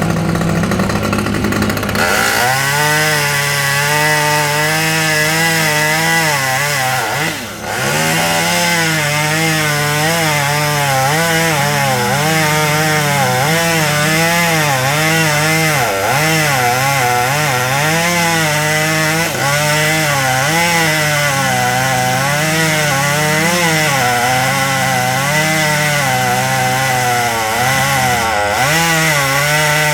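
Small chainsaw cutting through a limb at high revs. About two seconds in it goes from a steady tone into the cut, and its pitch then wavers continually as the engine bogs and picks up under load, dipping briefly about seven seconds in.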